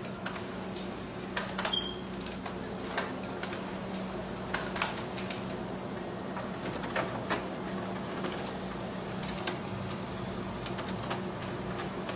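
Canon imageRunner 1435iF copier running a two-sided copy job: a steady motor hum with irregular clicks and clacks of the paper feed, and a brief high tone about two seconds in.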